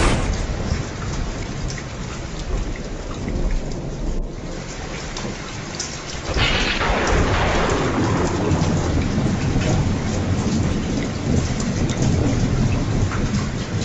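Steady rain with rolling thunder; a low rumble of thunder swells about six seconds in and keeps rolling.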